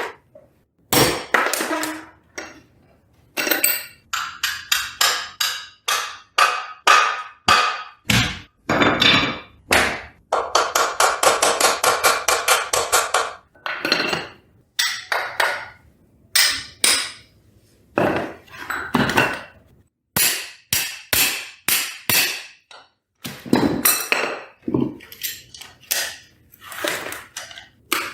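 Metal tools and parts knocking and clanking in a workshop: a long series of sharp, irregular impacts with short ringing tails. A fast run of rapid clicking lasts about three seconds in the middle.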